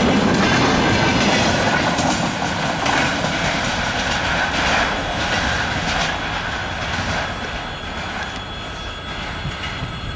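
Freight train of container flatcars rolling past, wheels clattering over rail joints and points with a few sharp knocks, then fading as the tail of the train draws away. A thin steady wheel squeal runs under it.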